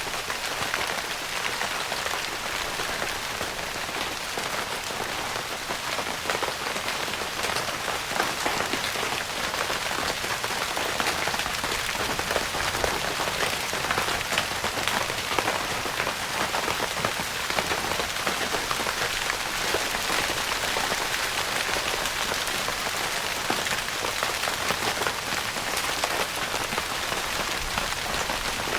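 Steady rain pattering on a tent's fabric roof, heard from inside the tent: a continuous hiss with countless individual drops ticking.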